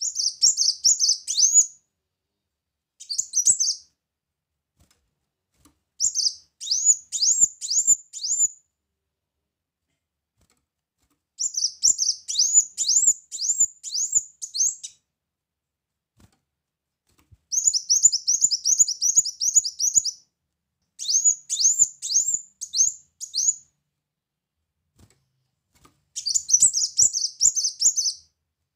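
Kolibri muncang sunbird singing in seven bursts of rapid, high-pitched chirps. Each burst is a quick string of sharply falling notes lasting one to three seconds, with short pauses between.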